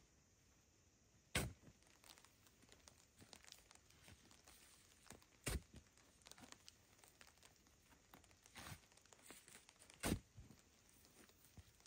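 Three sharp knocks about four seconds apart, with crackling and rustling in between.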